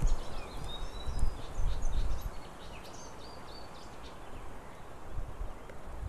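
Wind gusting on the nest-camera microphone as a low rumble, strongest in the first two or three seconds, then easing. Many short, high bird chirps come over it in the first half.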